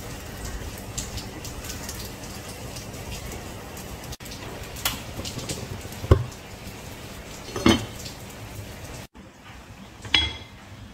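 Spatula stirring and scraping grated radish in an enamelled pot, with a few sharp knocks of the spatula and pot, the loudest about two-thirds of the way through, over a steady hiss.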